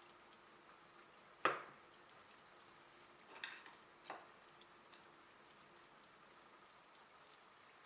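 A few sharp clinks and knocks of kitchen utensils and dishes over a faint steady hiss. The loudest knock comes about a second and a half in, followed by a short cluster of lighter clicks and two single ones a little later.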